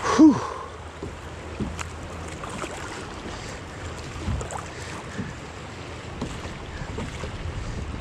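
Swift, choppy river water rushing and splashing around a kayak as it runs a riffle, with wind buffeting the microphone, and a few faint small splashes now and then.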